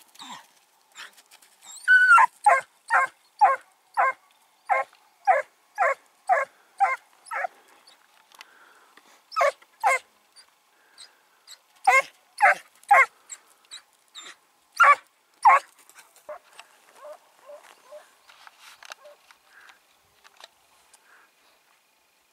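Hunting dog barking on a hare hunt: a quick run of about ten sharp barks, then barks in pairs with pauses between, growing fainter near the end.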